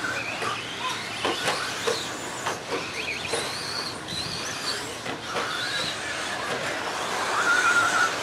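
Electric RC stadium trucks with 13.5-turn brushless motors running on a dirt track. Their motor whines rise and fall as they speed up and slow down, with scattered knocks from the trucks on the dirt, and a steadier whine near the end as one truck runs flat out.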